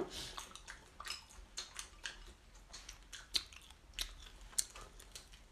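A person chewing grilled pork, a run of short irregular wet smacks and clicks. The meat is chewy pork shoulder.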